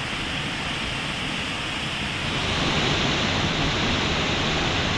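Waterfall rushing: a steady, even roar of falling water that grows a little louder about two seconds in.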